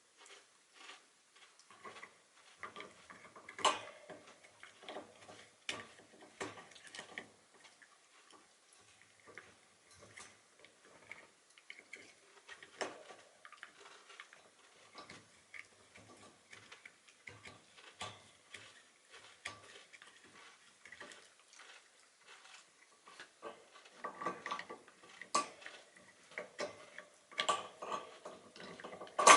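A Shiba Inu gnawing a hard horse-hoof chew: irregular clicks and knocks of teeth on the hoof, with a louder, quicker run of them near the end.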